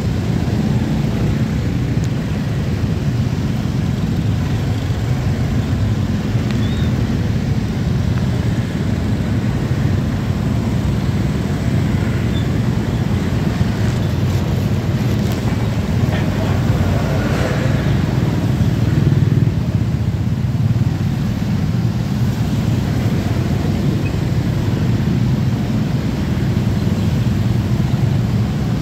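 Steady engine drone of a motor scooter creeping through heavy traffic, with the idling and running engines of surrounding motorcycles, cars and a truck mixed in, swelling briefly a little past the middle.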